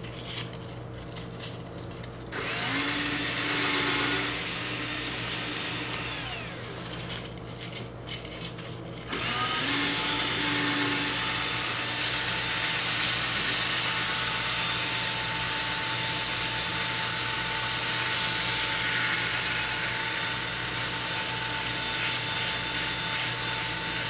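Cordless drill/screwdriver spinning a rusty fan shaft clamped in its chuck while sandpaper is held against it, scouring off the rust: a steady motor whine with a rasping sanding hiss. It runs for about four seconds starting a couple of seconds in, eases off, then runs steadily again from about nine seconds in.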